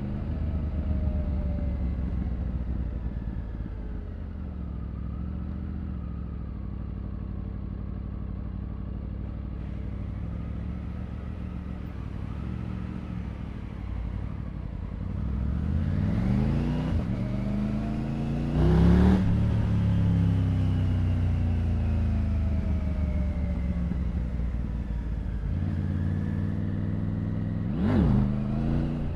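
Triumph Tiger 900's three-cylinder engine running at low revs, then pulling up with rising pitch over a few seconds before easing off. Near the end comes a short, sharp rev rise and fall.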